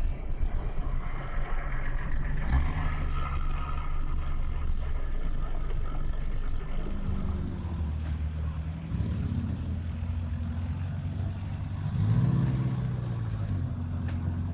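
Mitsubishi L200 pickup's engine running as it drives off-road. Its pitch steps and shifts with the throttle, with a brief rise and fall in revs about twelve seconds in.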